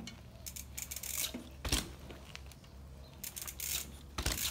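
Full-suspension mountain bike rolling slowly over dirt and dry leaves, the tyres crackling, with a thump about a second and a half in and a stronger one near the end as a wheel comes down during a manual.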